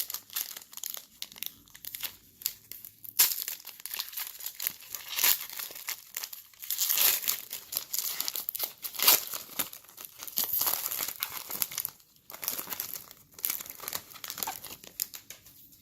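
Foil trading-card pack wrapper crinkling and tearing as it is handled and opened, with many small sharp crackles.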